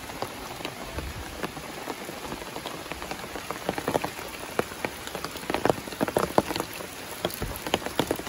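Heavy rain, with large drops tapping sharply and irregularly on a surface close by, the taps coming thicker from about four seconds in.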